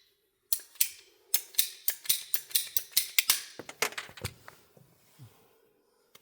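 A quick run of sharp clicks and snaps, about four a second, from hand-tool work trimming a fitted piece that is a little too big, over a faint steady hum. The clicks thin out and stop after about four seconds.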